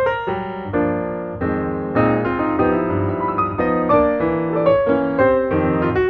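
Background piano music: a slow run of single notes over held chords.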